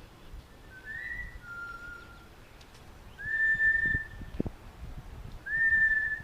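Blue-fronted Amazon parrot whistling: a short two-note whistle, then two longer steady whistles, each sliding up at the start.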